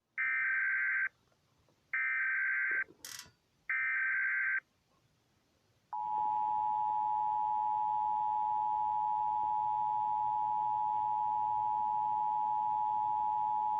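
Emergency Alert System test: three bursts of SAME header data tones, about a second each, then, about six seconds in, the steady two-tone EAS attention signal held for about eight seconds. A brief crackle falls between the second and third bursts.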